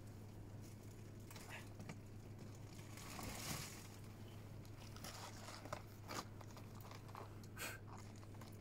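Rummaging through rubbish inside a wheelie bin: faint crinkling and rustling of plastic and cardboard packaging, swelling briefly around the middle, then a few short sharp clicks and knocks, over a low steady hum.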